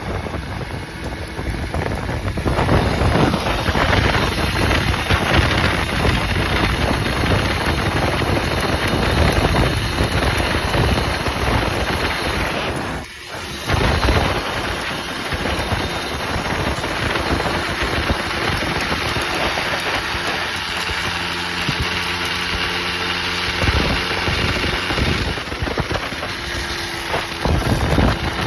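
Simson S51's single-cylinder two-stroke engine running, with a brief drop in level about halfway through and a more even note with a steady tone later on. It is making odd noises that the owner has heard since a new ball bearing was fitted in the engine.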